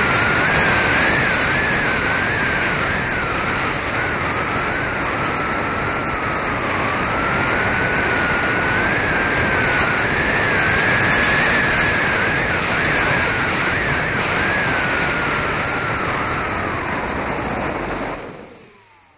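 Wind rushing over the onboard camera of an electric Avios Super Tucano RC plane in flight, with the motor and propeller whining, their pitch wavering up and down. The sound fades away quickly near the end.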